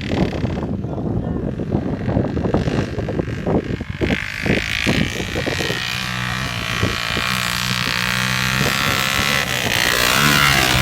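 A motor running, with wind buffeting the microphone: crackly, uneven rumble at first, then a steady hum with a rising hiss from about six seconds in.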